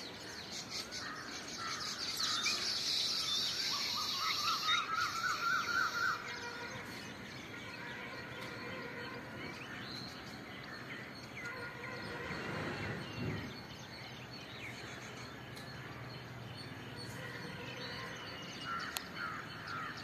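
Small birds chirping and chattering, loudest in a dense high chorus over the first six seconds, with a short run of rising notes about four seconds in and scattered calls after. A brief low rumble passes about twelve seconds in.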